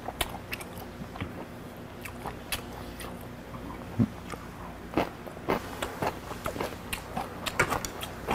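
A person chewing and biting food close to the microphone, with many short, sharp clicks of metal chopsticks against dishes.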